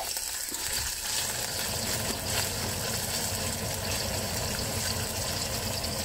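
Oil sizzling steadily in a frying pan. A kitchen ventilation fan switches on about half a second in and runs under it.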